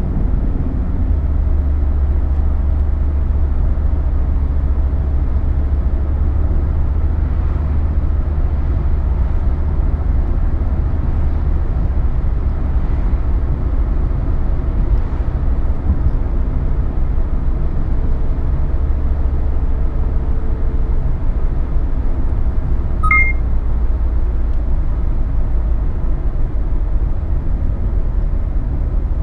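Mercedes-Benz 190D 2.5 Turbo's OM602 five-cylinder turbodiesel running steadily at cruising speed, heard from inside the cabin as a deep drone with road noise. A brief high beep sounds about three-quarters of the way through.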